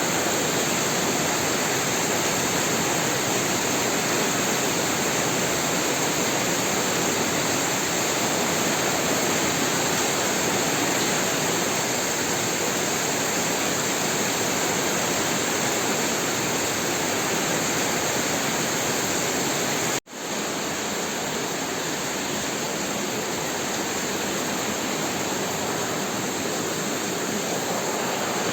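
Heavy rain falling steadily, an even hiss of water. About two-thirds of the way through the sound cuts out for an instant and then carries on a little quieter.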